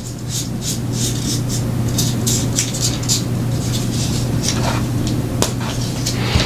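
Fingers rubbing and handling a plastic model kit part close to the microphone: a rapid, uneven run of soft scratchy brushing strokes over a steady low hum.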